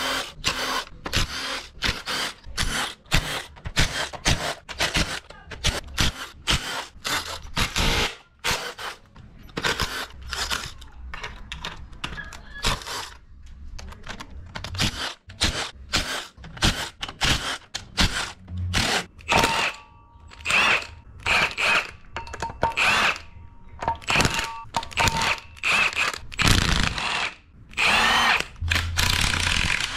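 Cordless power driver spinning out engine cover bolts in many short bursts, one after another, with a faint motor whine in the middle stretch. Near the end a heavier cordless impact wrench hammers on the crankshaft pulley bolt.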